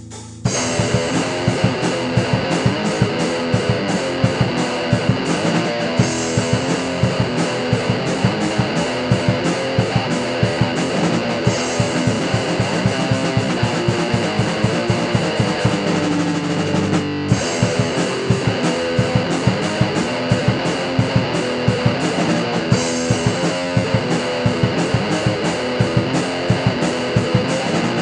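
Black metal song: distorted electric guitars over fast, dense drumming, coming in at full force about half a second in after a quieter guitar passage, with a brief break about two-thirds of the way through.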